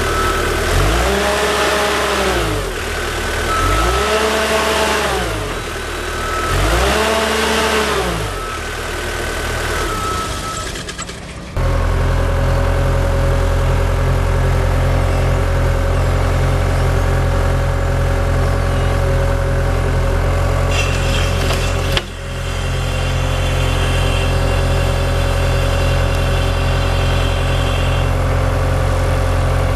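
A 2011 Terex PT70 compact track loader's diesel engine revved up and back down three times, about every three seconds. It then breaks off abruptly into steady running at a constant speed.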